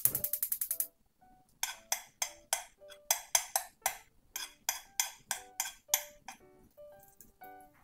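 Background music: a light tune of short percussive strikes, about three a second, over a simple melody of held notes. It gets softer in the last couple of seconds.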